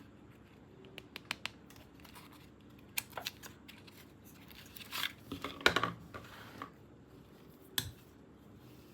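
Scattered sharp plastic clicks and short rustles from a toy and its packaging being handled, with a louder busy cluster about five to six seconds in.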